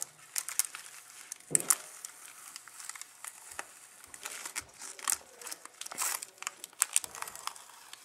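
Thin plastic protective film crinkling in irregular crackles as it is peeled off a graphics card's shroud and handled, with bubble wrap rustling under the hands.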